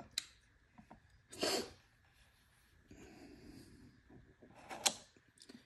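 Faint clicks and knocks of a CAP adjustable dumbbell being handled in its plastic base. There is a short noisy burst about a second and a half in and a sharper click near the end.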